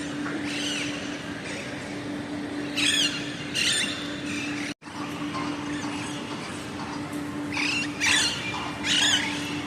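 Parrots screeching: shrill, sweeping calls in short bursts, in pairs about 3 seconds in and again near the end, over a steady low hum.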